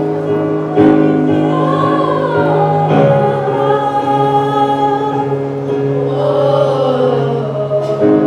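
School choir singing long, held notes over a steady low instrumental accompaniment, changing chords a few times.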